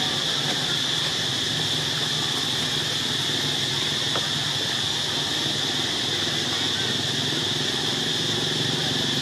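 Steady outdoor background drone: a high-pitched hum over a faint low hum, unchanging throughout, with no distinct calls or knocks.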